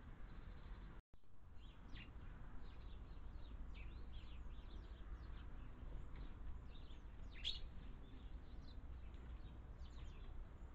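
Small garden birds chirping: many short, high calls in quick succession over a steady low background rumble. The sound cuts out briefly about a second in.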